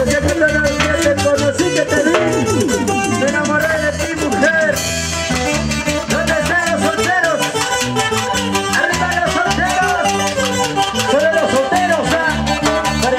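Live band playing an upbeat Latin tropical dance tune with a steady beat: drums and timbales, electric bass, electric guitar and keyboard, with a melody line rising and falling above.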